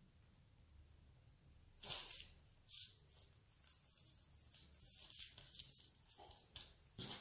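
Hands pressing and smoothing a thin sheet of dough down onto parchment paper: faint, short rustles of the paper and soft brushing of palms on dough, a couple about two seconds in and a cluster toward the end.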